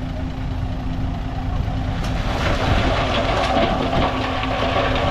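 Heavy diesel earthmoving machinery running steadily, with a louder rattling, scraping noise building up from about two seconds in.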